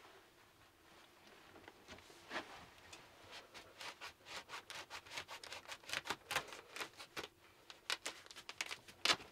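Quick, close rustling and scratching with light taps, sparse at first and busier after about three seconds, with one louder knock near the end.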